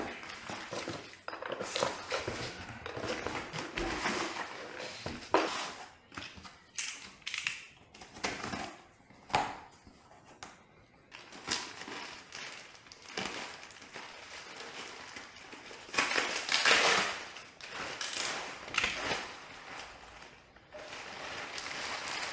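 Plastic wrapping and cardboard boxes rustling and crinkling as a part is unpacked from packing peanuts, with a few knocks of cardboard and parts; the crinkling is loudest about two-thirds of the way through.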